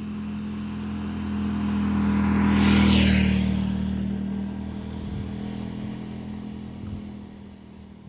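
A vehicle passing by: its noise builds to a peak about three seconds in and then fades away, over a steady low hum.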